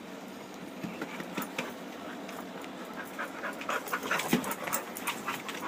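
Dogs panting and scuffling as they play, with scattered light clicks that get busier in the second half.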